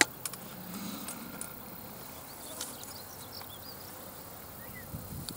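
Insects buzzing around the microphone over a steady faint background hum, with a few faint high chirps and small clicks; a sharp click right at the start.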